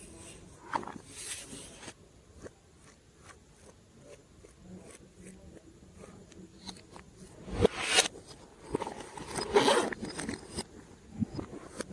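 Glossy slime being squished and stretched by hand: a string of small sticky clicks and pops, with a louder snap just before eight seconds in and a crackly run just after.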